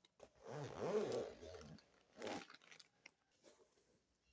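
Plastic chip bag crinkling as it is pushed into a backpack pocket, the loudest rustling about a second in, then a shorter rustle a little after two seconds.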